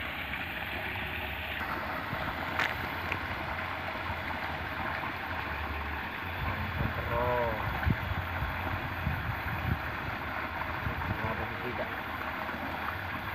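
Water spilling over a small concrete weir into a shallow stream: a steady rushing, splashing flow.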